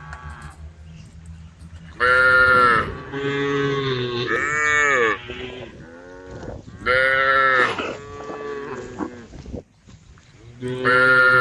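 Cows mooing, a series of about five long calls one after another, the first about two seconds in, some overlapping as cows answer one another.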